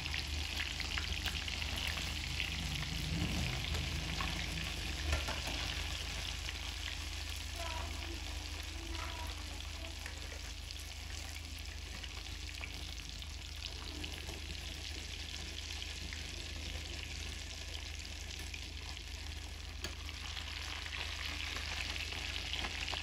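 Egg-coated potato tikki deep-frying in a pan of hot oil: a steady sizzle of bubbling oil. Metal tongs click lightly against the patties and pan now and then.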